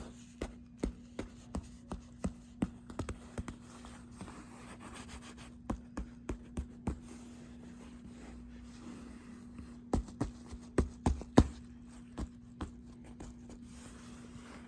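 Hands handling a leather jacket: irregular light taps, clicks and rubbing, over a faint steady hum.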